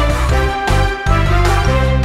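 Cartoon background music: an upbeat instrumental tune with a bass line and a steady beat.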